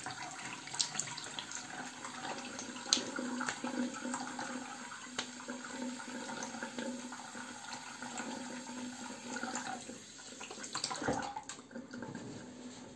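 Tap water running into a bathroom sink while the face is rinsed with handfuls of water splashed up from it. The steady rush of water dies down near the end.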